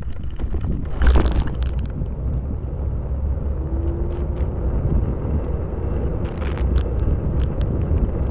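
Steady low wind rumble buffeting the microphone and rolling tyre noise during a ride along a trail. There is a short loud rush about a second in and a few light clicks near the end.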